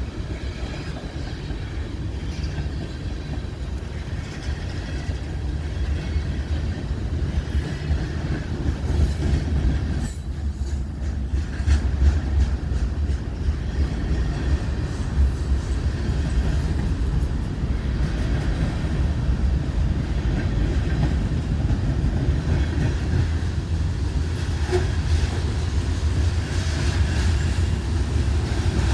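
Freight cars rolling past on the rails: a steady low rumble of wheels on track with some clickety-clack, and brief high-pitched wheel squeals now and then.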